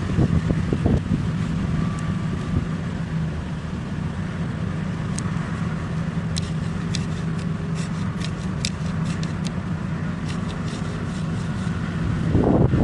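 Large diesel engine of heavy mining equipment running steadily with a low drone. It rumbles louder at the start and again near the end, with scattered sharp ticks in the middle.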